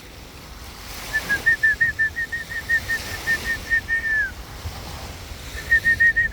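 A bird calling: a run of short, identical high notes, about five a second, ending in a drawn-out falling slur, then a second run starting near the end. A steady wash of small lake waves lies under it.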